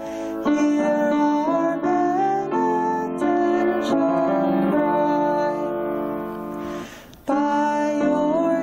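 Grand piano accompanying a sung melody: held notes with small slides between them, and a breath between phrases about seven seconds in.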